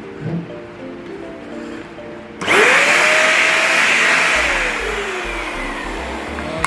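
Hetch corded upright vacuum cleaner switched on about two and a half seconds in: a sudden rush of air with a motor whine that climbs quickly and holds. It is then switched off, and the whine falls as the motor winds down. Background music plays throughout.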